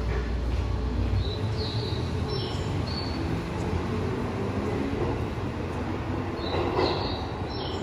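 Tokyo Metro 16000 series subway train pulling out of an underground station and accelerating away: steady motor hum and wheel rumble, with a few short high squeaks.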